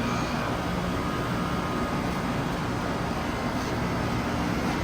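Ruud Choice series air conditioner (WA1418AJ1NA) running steadily with its normal hum and fan noise, past the grinding start-up that is blamed on a worn compressor or bad compressor mounts.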